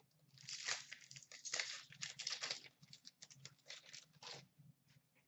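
A hockey card pack being torn open and its cards handled: crinkling and tearing wrapper with rustling cards, in a run of short scratchy bursts that stops about four and a half seconds in.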